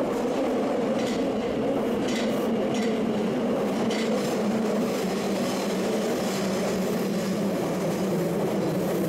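Osaka Metro Midosuji Line subway train running past along an underground platform. Its wheels on the rails make a steady rumble, with a few faint clicks about once a second as the wheels cross rail joints.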